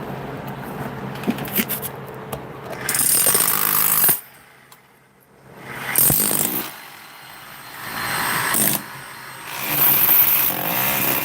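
Power tool working on stone, running in several bursts of about one to two seconds with short pauses between.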